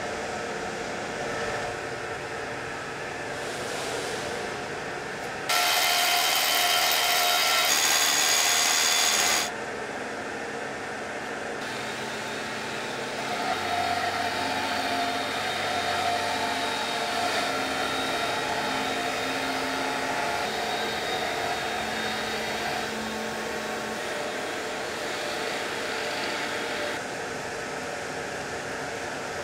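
Hand-held power polisher with an abrasive pad running against the edge of a black granite slab, a steady whine over the constant hum of workshop machinery. About five seconds in, a louder hiss lasts about four seconds and then stops suddenly.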